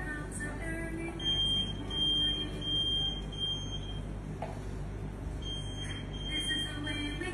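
Electromagnetic library security gate alarm: a single high-pitched beep pulsing on and off, about four beeps, a pause of about a second and a half, then three more. It is set off as a person walks through the gate.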